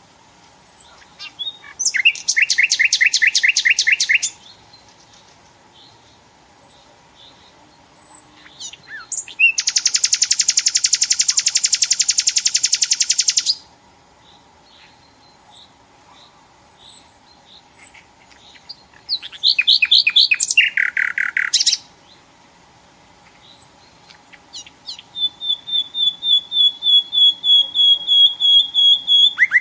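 Nightingale singing in separate phrases of fast repeated notes, including a trill of about four seconds near the middle, with soft high chips in the pauses between phrases. The last phrase is a long run of repeated whistled notes that grows louder.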